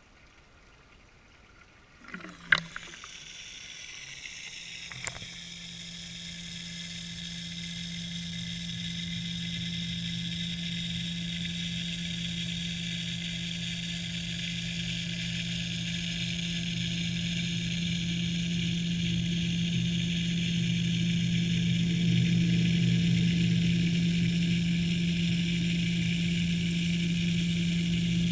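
A few sharp knocks as the camera housing goes into the water, then a steady low hum with a higher whine above it that grows gradually louder, heard underwater through the housing. The hum is most likely the pond's water pump, which feeds the waterfall.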